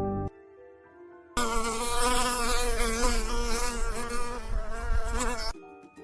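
An insect-like buzzing with a wavering pitch, loud, starting about a second and a half in and cutting off sharply about four seconds later. Soft music notes come before and after it.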